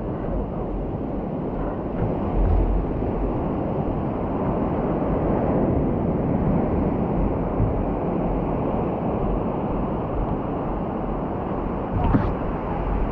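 Wind buffeting the microphone over the steady wash of ocean surf, with a brief knock near the end.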